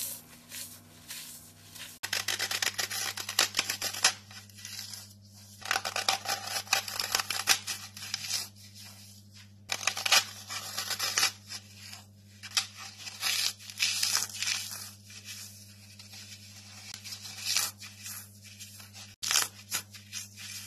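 Fingers crushing and crumbling dry floral foam: dense crackling crunches in irregular bursts with short pauses. A faint steady low hum runs underneath.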